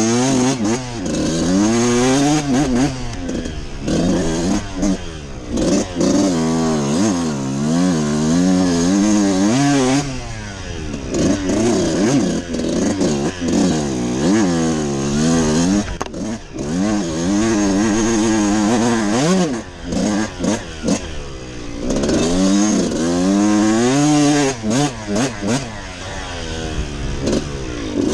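Dirt bike engine being ridden hard, its pitch rising and falling again and again as the throttle is opened and rolled off, with a few brief dips where the throttle is shut.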